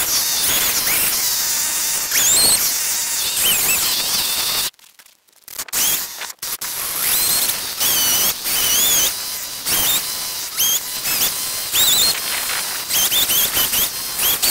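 Chainsaw carving into a fresh pine log, the engine revving up and down again and again in quick high glides. It drops out to near silence for about a second and a half around five seconds in.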